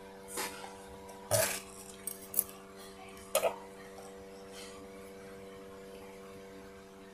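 A few light metallic clinks and clicks, mostly in the first three and a half seconds, over a steady electrical hum. The clinks are typical of metal parts being handled at an overlock sewing machine.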